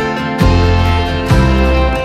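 Background music led by a plucked guitar, with new chords struck twice.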